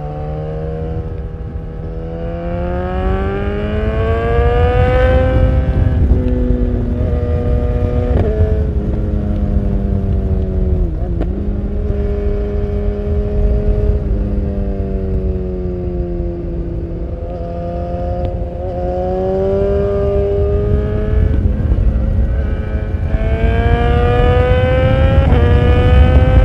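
BMW S1000R's inline-four engine through an Akrapovic full exhaust, running under load while riding. Its pitch climbs in repeated pulls, stepping at each gear change, with a brief drop off the throttle about eleven seconds in.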